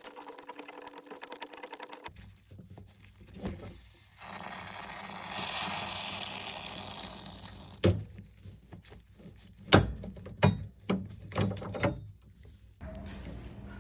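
Copper pipe being cut with a C-style pipe cutter: rapid fine clicking, then a few seconds of scraping hiss as the cutter wheel turns round the pipe, then several sharp metallic knocks.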